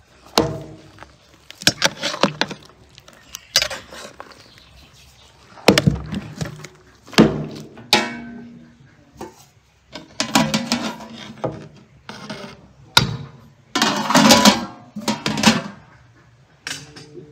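Metal skimmer knocking and scraping against a large aluminium cooking pot of strawberries, in irregular clanks and scrapes, a few of them ringing briefly.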